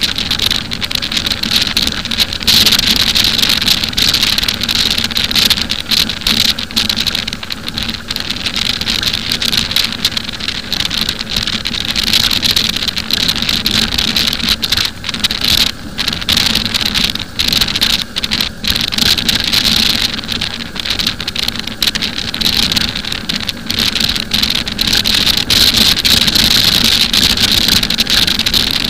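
Wind rushing over the microphone of a moving motorcycle, with its engine running steadily underneath at a constant cruising pace.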